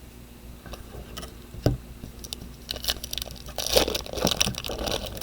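Trading cards being handled and flipped through: a single knock about a second and a half in, then a quick run of scraping clicks.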